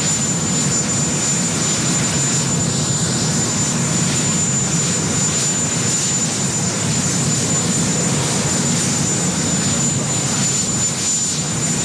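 Marine One, a Sikorsky VH-3D Sea King helicopter, with its turbine engines running on the ground: a steady, loud rush of engine and rotor noise that does not change.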